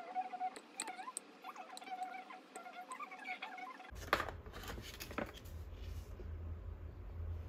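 Faint wavering tones and light clicks, then, from about four seconds in, a plastic soup pouch crinkling as a hand handles it, over a low steady hum.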